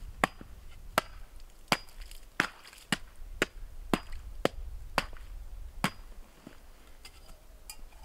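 A tool chopping with about ten sharp, evenly paced strikes, each leaving a faint ring, stopping about six seconds in.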